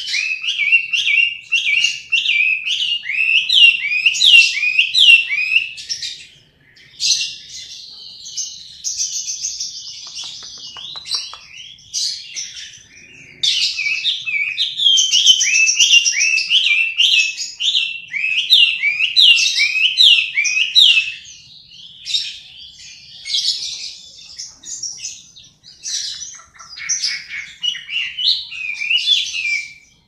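Hwamei (melodious laughingthrush) singing: loud, fast runs of repeated falling whistles, broken by quieter stretches of softer warbling about seven seconds in and again after about twenty seconds.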